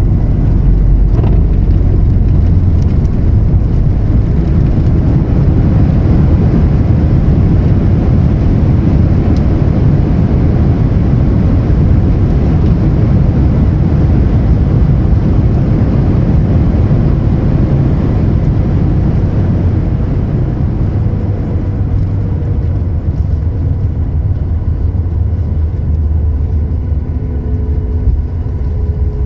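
Boeing 737 MAX 8 airliner heard from inside the cabin during landing: a loud, steady, low rumble of engines and airflow. It eases off a little in the last ten seconds, when faint thin tones come in.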